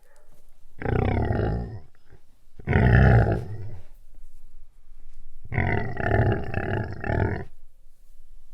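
Animal growling: three deep, rough growls. The first two last about a second each, and the third is longer, about two seconds, and wavers as it goes.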